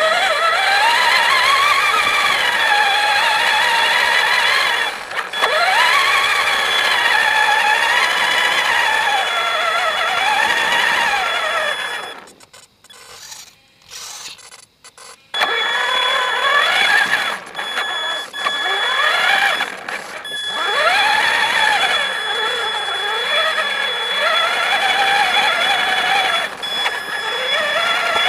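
Electric RC truck's motor and gear drive whining, the pitch rising and falling as the throttle is worked, over a steady high-pitched whine. It drops to near silence for about three seconds near the middle, then picks up again.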